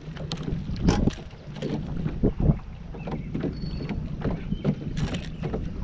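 Sounds aboard a small fishing boat: a steady low hum with scattered short knocks and bumps, and some wind on the microphone.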